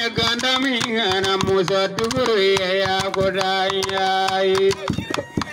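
A singing voice holding long, sliding notes over rapid hand strokes on calabash gourd drums. The singing stops near the end, leaving the calabash strokes.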